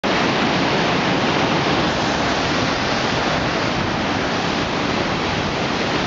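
Waterfall and white-water cascade pouring over rocks: a loud, steady rush of water.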